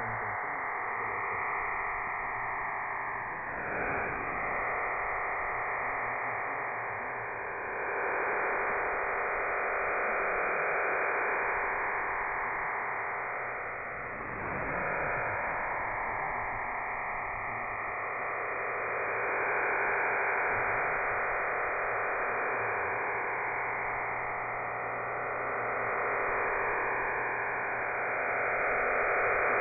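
Digital data transmission from the Cuban HM01 shortwave number station, received in AM: a steady, dense rushing noise, with slow fading drifting through it.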